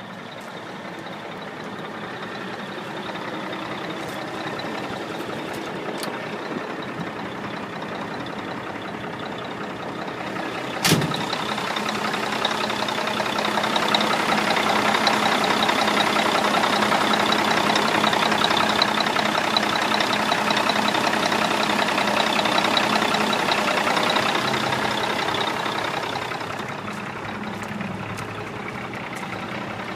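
1979 Mack log truck's diesel engine idling steadily, louder from about twelve seconds in where it is heard up close. A single sharp knock about eleven seconds in.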